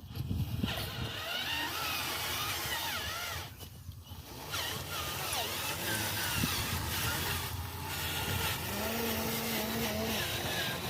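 Small motors of remote-control models running, with short whining pitch glides and, near the end, a steady low hum, over a constant hall hubbub.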